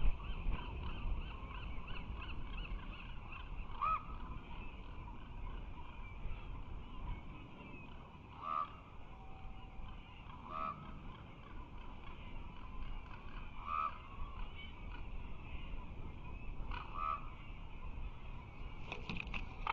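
Birds calling: a quick run of repeated calls in the first few seconds, then single short calls every two to four seconds, over a low steady rumble.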